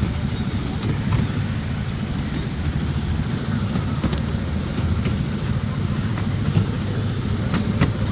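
Amusement-park ride-on train running along its track: a steady low rumble, with a few faint clicks about four and eight seconds in.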